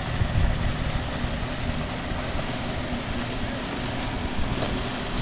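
Outboard motor of a small motorboat running steadily as it passes, a faint even drone over a fluctuating low rumble.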